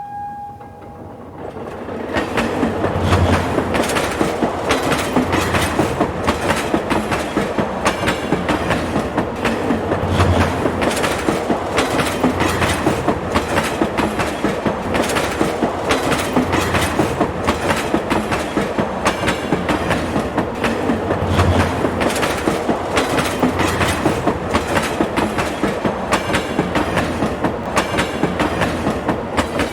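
A train rolling past, its wheels clattering over the rail joints in a fast, steady clickety-clack. The last of a horn note fades in the first second, and the clatter swells over the first two seconds and then holds.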